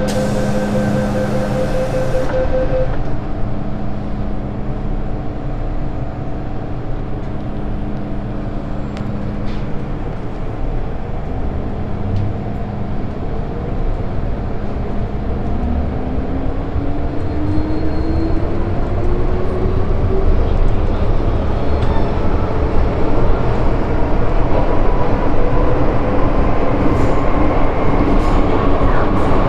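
MTR M-train electric multiple unit running with a steady rumble. A beeping tone sounds for the first couple of seconds, and from about halfway through the traction motor whine rises in pitch as the train picks up speed, growing louder.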